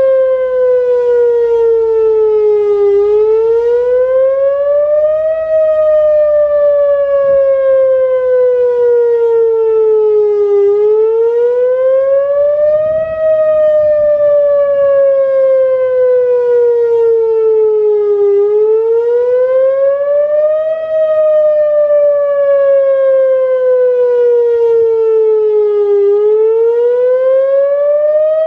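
Whelen WPS-2904 electronic outdoor warning siren sounding its wail tone on test, loud and steady. The pitch rises and falls in a slow, repeating cycle about every seven to eight seconds, each rise quicker than the fall.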